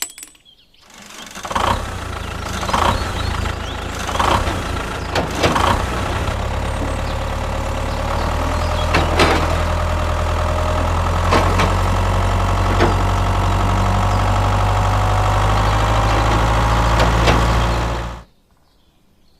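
Engine idling steadily with a deep, low rumble, with sharp clicks every second or so over it. It cuts off suddenly about a second before the end.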